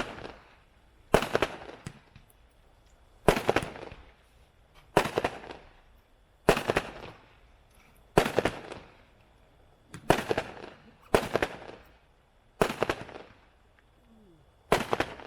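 World Class Apache Strike, a 56-shot 500-gram fireworks cake, firing its shots one at a time, about one every one to two seconds. Each is a sharp bang that trails off over about a second in a scatter of smaller pops.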